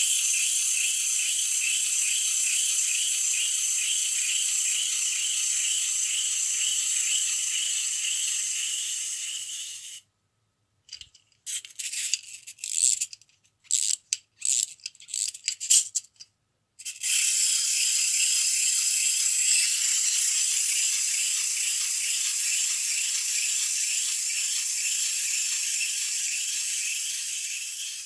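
Clockwork wind-up T-rex toy's spring motor whirring steadily as it walks, slowly weakening as the spring runs down. In the middle comes a spell of irregular clicking as the toy is wound by hand, and then the whirring starts up again.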